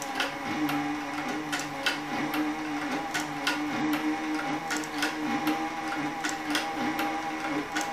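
Cowboy CB3200 compound-feed walking-foot sewing machine stitching a leather belt under power at a slow pace: a steady motor hum with a clack from each needle stroke, about two a second.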